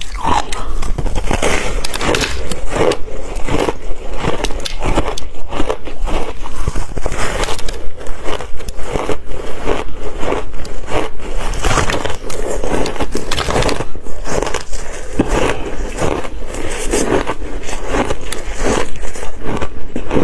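Ice being bitten and chewed close to the microphone: a steady run of sharp crunches and cracks, several a second.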